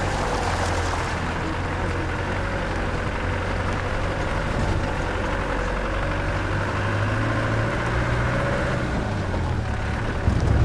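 Off-road vehicle's engine running steadily at low revs while crawling along a rough unsealed lane, heard from inside the cabin, with a faint wavering whine over the engine note. The engine note grows louder near the end.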